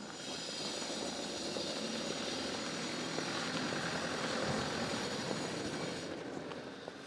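A vehicle passing by. Its noise swells, peaks about four seconds in, then fades away.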